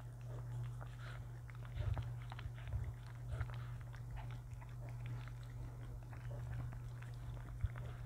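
Shih Tzu eating dry kibble from a bowl: irregular crunching and clicking of the kibble, with a few louder knocks about two seconds in, around three and a half seconds in, and near the end.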